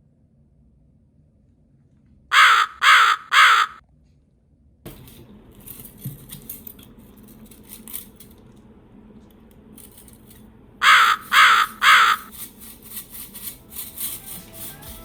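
A crow cawing three times in quick succession, then three more caws about eight seconds later. Faint background noise with scattered clicks runs between and after the caws.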